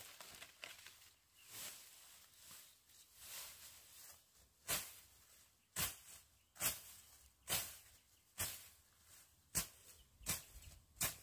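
Rhythmic scraping, swishing strokes of a hand tool, about one a second, growing sharper and louder from about four seconds in.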